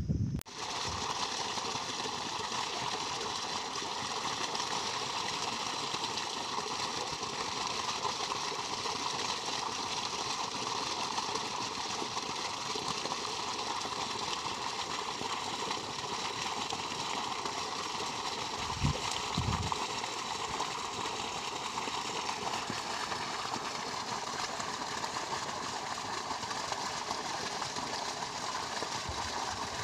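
Irrigation water gushing steadily from a pump's outlet pipe and splashing into a pool on the ground.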